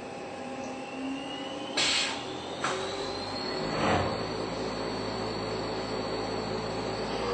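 Haas SL-20 CNC lathe running, with a high whine that rises in pitch over a couple of seconds and then holds steady. Three short loud noisy bursts stand out in the first half.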